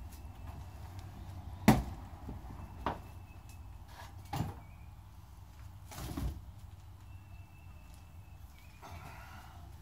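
A few sharp knocks: a loud one a little under two seconds in, then three softer ones spread over the next few seconds, over a low steady rumble.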